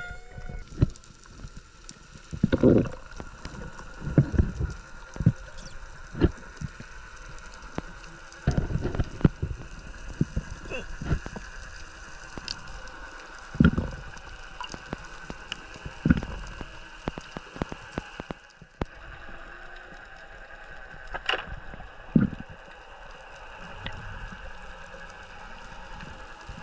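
Underwater sound picked up by a spearfisher's camera during a dive: irregular muffled thumps and knocks from water movement and handling, over a steady faint hum.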